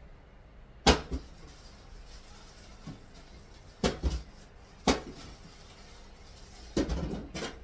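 Kitchen clatter: a handful of sharp, irregular knocks of utensils and dishes, with a longer rattling clatter near the end.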